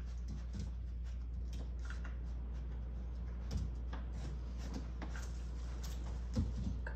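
Scattered small clicks and rustles of a puppy and its toys moving about on a playpen mat, over a steady low hum, with a soft thump a little after six seconds in.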